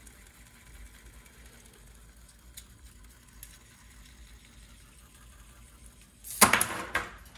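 Bared Oral-B electric toothbrush motor and drive running with a faint, steady buzz. A little over six seconds in, a loud clatter as the running assembly is dropped onto the desk.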